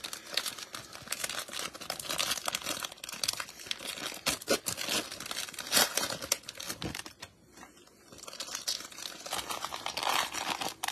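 Plastic wrapping of trading-card packs being torn open and crinkled by hand: an irregular crackle and rip of plastic, with a short lull about seven seconds in before the crinkling resumes.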